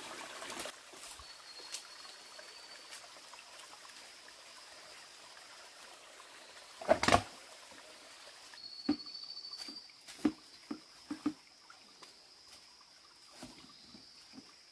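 Barefoot footsteps on rock and dry leaves, with water trickling faintly and a steady high whine from about a second in. About seven seconds in, a sharp double knock is the loudest sound, followed by a run of small knocks.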